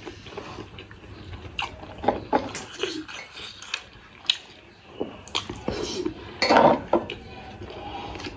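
Eating by hand: a man chewing steamed buff momos, with scattered clicks and clinks of fingers and dumplings against a metal plate and small glass dip bowls. A louder, longer noise comes about six and a half seconds in.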